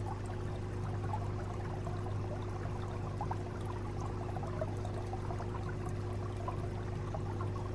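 Aquarium water circulation running: a steady low hum under a constant trickling and bubbling of water.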